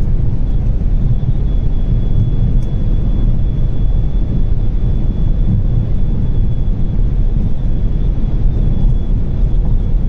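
Inside the cabin of a Volvo V40 T3 2.0 at near top speed (around 210 km/h): a loud, steady rush of wind and road noise over the engine, with a faint, steady high whistle. This is the high-speed wind noise that starts only at around 200 km/h and is annoying.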